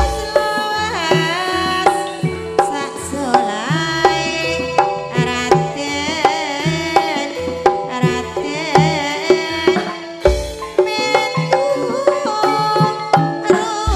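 Live Javanese campursari music, mostly instrumental: a kendang hand drum beats a steady rhythm over sustained bass notes while a melody line with vibrato wavers above.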